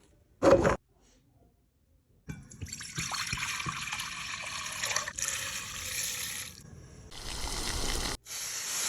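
A single knock, then from about two seconds in liquid pouring or running in several spells of steady flow, with short breaks between them.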